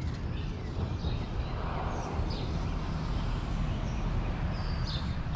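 Outdoor morning ambience: a steady low rumble with a few short bird chirps scattered through it.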